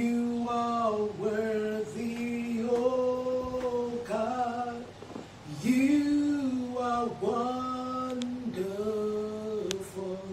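A woman singing a slow worship song without clear words, holding long, steady notes in phrases of one to two seconds, with short breaks for breath between them.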